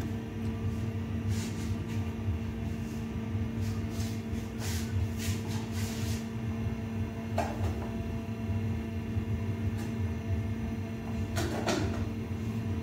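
Aluminium pot lid handled at a gas stove: scattered light clinks and knocks, the loudest about seven and a half and eleven and a half seconds in, over a steady low hum.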